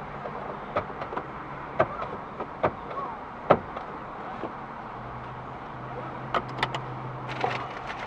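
Car cabin sound: a steady low hum with a low drone that swells for a couple of seconds past the middle, and a scattered handful of sharp clicks and taps, the loudest about three and a half seconds in.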